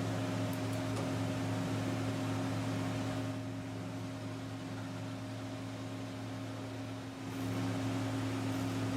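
Steady low machine hum with a few fixed tones over a hiss. The hiss fades for a few seconds in the middle, then comes back, with a couple of faint clicks near the start.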